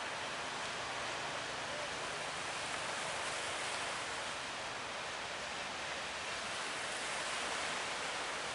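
Steady rushing noise of rough sea water around a boat running through big waves.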